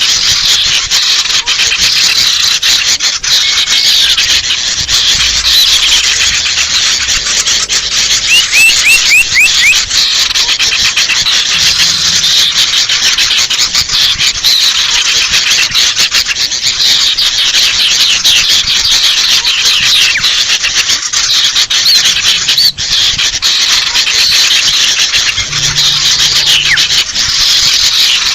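Bird-lure recording of sooty-headed bulbuls (kutilang) and sirtu birds calling in agitation, a dense, unbroken chatter of rapid harsh notes. About eight seconds in, a quick run of about six rising notes stands out.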